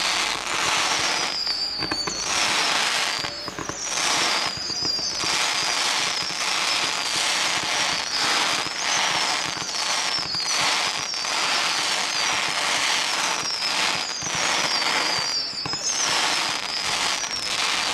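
Fireworks going off in close succession, a dense crackle of bursts broken by brief lulls, with repeated high whistles that fall in pitch.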